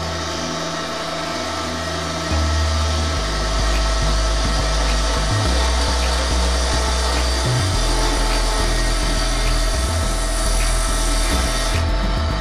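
Wood lathe running, with a hand-held turning chisel cutting into the spinning wood of a spindle. The motor's steady hum sits under the rough sound of the tool on the wood, which grows louder about two seconds in.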